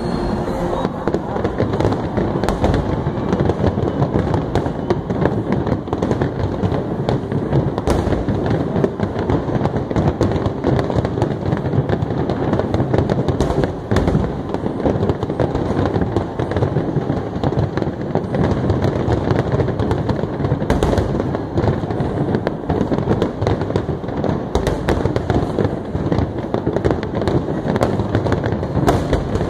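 A fireworks display at its height: a dense, continuous barrage of shell bursts and crackling, with many sharp bangs one after another.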